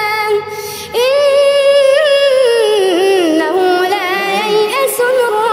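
A boy's high voice reciting the Quran in melodic tajweed style. He takes a quick breath about half a second in, then holds one long ornamented note that wavers and slowly falls in pitch.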